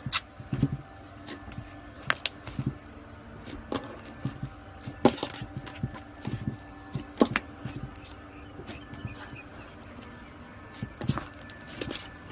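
Slime with clay mixed into it being squeezed and kneaded by hand, giving irregular sticky pops and clicks, a few a second, over a faint steady hum.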